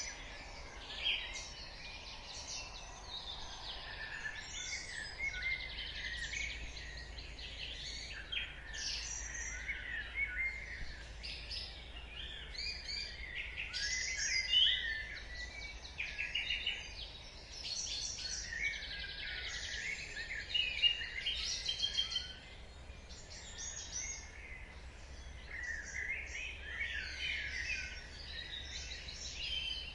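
Dawn chorus of several songbirds singing at once, a dense overlapping mix of short chirps, trills and whistles without a break.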